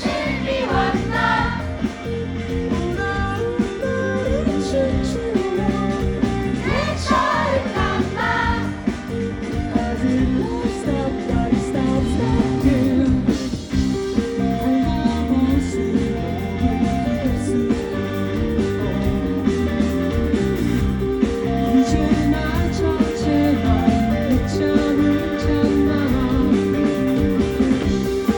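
Rock band playing live, vocals over electric guitars, with the clearest sung lines near the start and again about six to nine seconds in.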